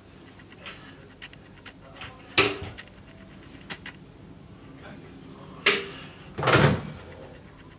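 A few sharp knocks and clunks in a small tiled bathroom: one about two and a half seconds in, another near five and a half seconds, then a heavier thud about a second later.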